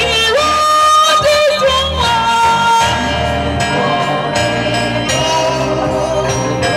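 Live gospel music: a group of singers with a band behind them, a voice holding long, wavering notes in the first couple of seconds.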